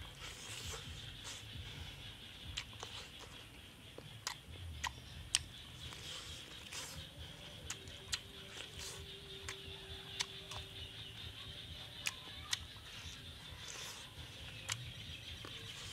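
Close-up mouth sounds of a man eating a roasted chicken leg: chewing, lip smacks and sharp clicks at irregular intervals, over a steady high-pitched background drone.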